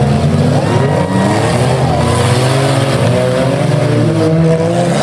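Engines of several six-cylinder demolition derby cars revving at once, their pitches rising and falling as they drive and spin their wheels in the mud.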